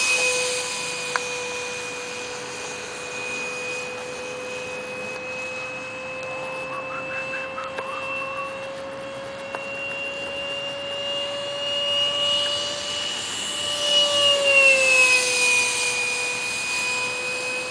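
Electric ducted fan of a radio-controlled Mirage 2000 model jet whining steadily in flight. It grows louder late on, its pitch rising slightly and then dropping.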